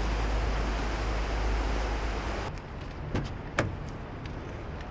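Steady outdoor noise with a deep rumble, then after an abrupt change two sharp clicks about half a second apart as a car's door is unlatched and opened.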